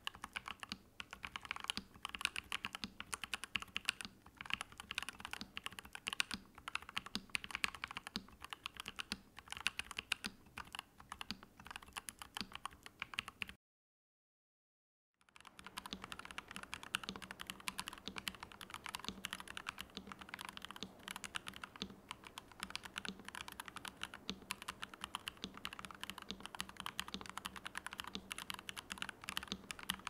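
Fast, continuous typing on a NuPhy Halo75 mechanical keyboard: a dense run of keystroke clacks, the first half on Gateron Baby Kangaroo switches. It stops for about a second and a half near the middle, then resumes just as steadily.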